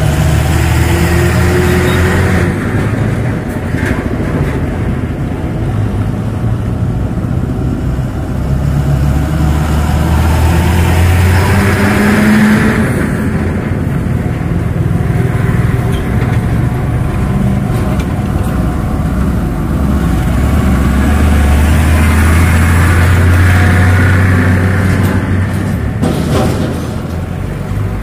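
Road traffic passing close by: diesel tanker and cargo trucks and several motorcycles going past one after another, the engine noise swelling as each one passes. It is loudest about twelve seconds in and again a little past twenty seconds.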